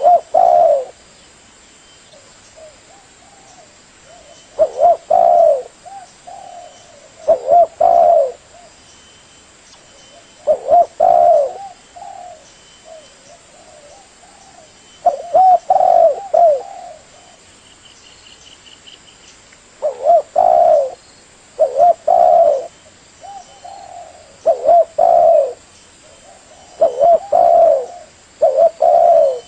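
Spotted dove (tekukur) cooing: about ten phrases of several low coos, each phrase about a second long and coming every two to four seconds, with softer coos in between.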